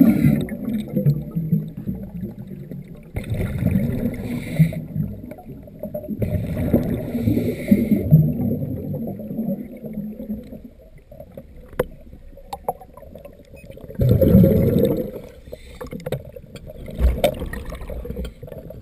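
Scuba diver's regulator breathing underwater: exhaled bubbles gurgling out in bursts every few seconds, with a longer quiet gap partway through and a few faint clicks.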